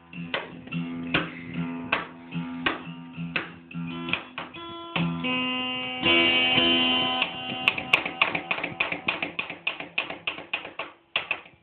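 Acoustic guitar played by hand: single plucked notes and chords ringing. A fuller strummed chord sounds about six seconds in, followed by a run of quicker picked notes.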